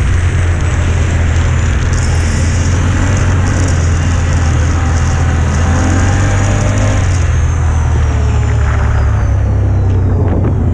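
Quad bike (ATV) engine running steadily under way over a rough dirt track, with a deep low rumble. A thin high whine falls in pitch over the last few seconds as the quad slows.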